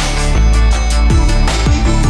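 Electronic dance music with a heavy, deep bass and a steady beat, with falling bass drops.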